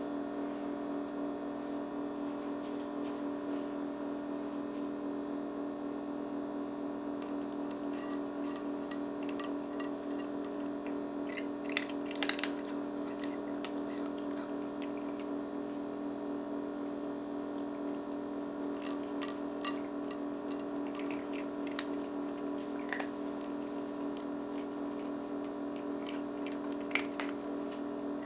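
Refrigerator humming steadily, with scattered bursts of small clicks and crunches as two cats eat dry treats from their bowls. The clicking starts about seven seconds in and is sharpest around twelve seconds in.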